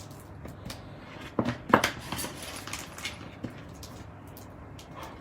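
Plastic packaging around a spool of ribbon being handled and pried at: scattered small clicks and crackles, with a louder flurry about one and a half seconds in.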